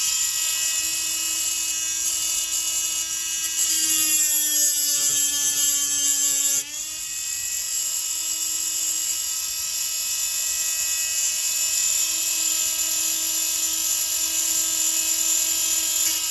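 High-speed electric rotary tool running with a steady whine while porting a chainsaw piston. About four seconds in it gets louder and its pitch sags as the bit bites into the work, then about six and a half seconds in it comes off and goes back to its free-running pitch.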